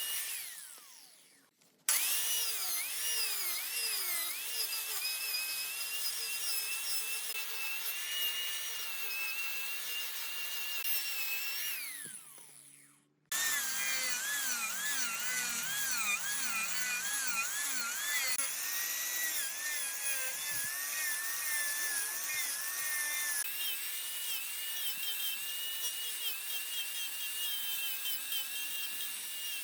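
Wood lathe running with a turning tool cutting the spinning wood: a high, wavering whine over a scraping hiss. It fades out twice, in the first two seconds and again around twelve seconds in, then starts again.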